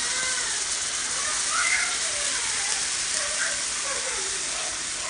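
Jowar flour dosa batter sizzling steadily on a hot non-stick pan as it cooks.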